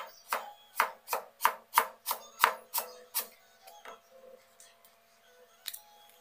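A knife slicing a bamboo shoot into thin rings on a plastic cutting board: about ten quick chops, roughly three a second, that die away about four seconds in. There is one more knock near the end.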